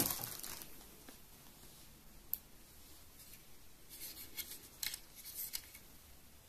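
Plastic packaging bag crinkling faintly and the plastic fan frame being handled, as a 120 mm RGB case fan is drawn out of its bag: the crinkle fades in the first half second, there is one sharp click about two seconds in, then a few short rustles and clicks around four to six seconds in.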